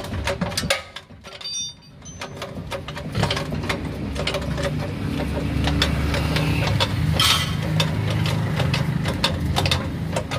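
A motor or engine running steadily with a low hum, under rapid, irregular clicking and ticking; the hum grows louder about three seconds in after a brief quieter spell.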